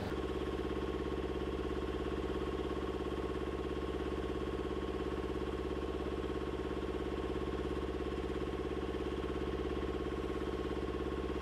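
Engine of an MJ-1 bomb lift truck running steadily: a low, even, pulsing hum with a faint steady higher tone above it.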